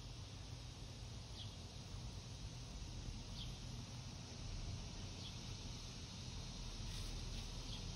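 Faint background: a steady low hum with about five brief, faint high chirps scattered through it.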